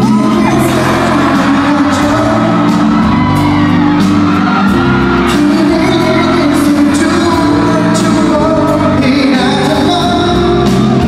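Live pop music played loud through a concert PA in a large hall: a male vocalist sings over a steady backing beat, with audience shouts and whoops mixed in.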